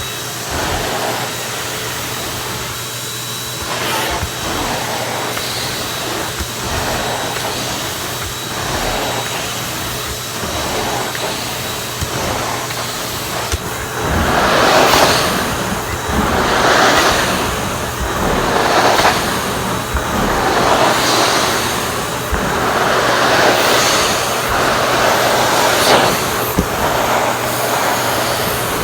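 Numatic Henry HVR200 canister vacuum cleaner running with strong suction, its floor tool worked over carpet. From about halfway the sound swells and fades roughly every two seconds as the tool is pushed and pulled.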